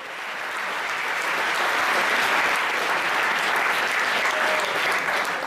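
Audience applauding, building over the first two seconds and starting to die away near the end.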